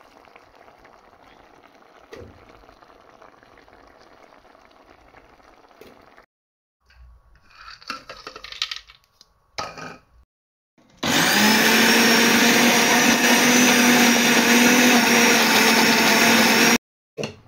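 Countertop blender starting up about eleven seconds in, its pitch rising quickly and then running steadily as it purées cooked tomatoes, onions and peppers, before cutting off suddenly near the end. Before it starts there are only quieter kitchen handling sounds.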